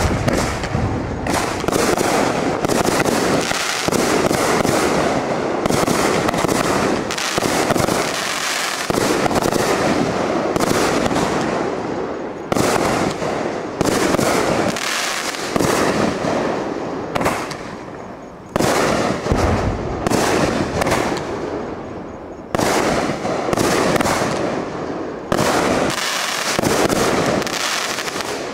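A 16-shot, 32-break consumer fireworks cake firing: shell after shell launching and bursting in a dense, near-continuous run of bangs and crackle, with fresh loud reports breaking in every few seconds through the second half.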